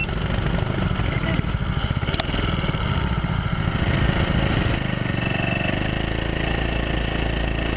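Go-kart engines running, a steady, fast-pulsing engine rumble, with a single sharp click about two seconds in.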